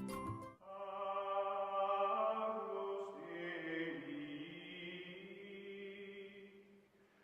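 Outro music: a brief chiming passage ends about half a second in, followed by a choir-like chant of long held notes that slowly shift in pitch and fade out near the end.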